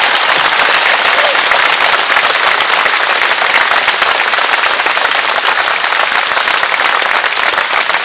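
Crowd applauding: dense, steady clapping of many hands, loud throughout.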